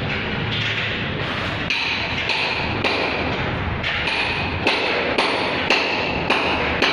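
Background music with a steady percussive beat, just under two beats a second.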